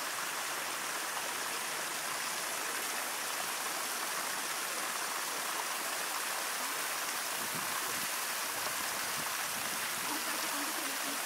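Steady rush of running water, an even hiss that holds at one level throughout.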